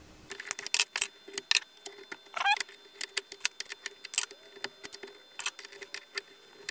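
Irregular metallic clinks and clicks of open-end wrenches on a Carbide router's collet nut and spindle as a spoilboard surfacing bit is fitted and the collet tightened, over a faint steady hum.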